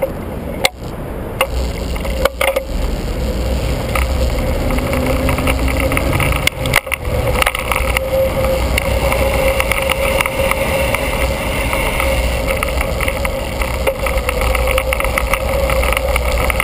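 Riding noise picked up by a bicycle-mounted camera: a steady wind rumble on the microphone with road and tyre noise and a steady hum. Scattered sharp clicks and knocks from bumps in the pavement, a few of them louder, around two and seven seconds in.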